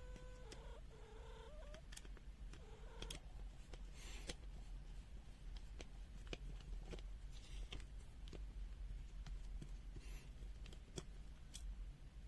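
Small sharp clicks, taps and short scrapes of a plastic multimeter case and its screws being handled and unscrewed during disassembly, with a brief pitched squeak near the start.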